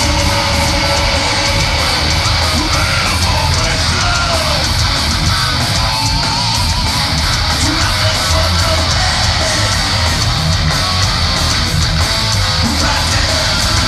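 Thrash metal band playing live at full volume, heard from the crowd: distorted electric guitars over bass and drums, with some yelled vocals.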